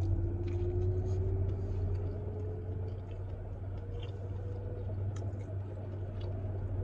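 Steady low hum of a car's engine and air conditioning heard inside the cabin, with a faint whine that slowly rises in pitch over the first five seconds. Soft chewing clicks from bites of a sandwich.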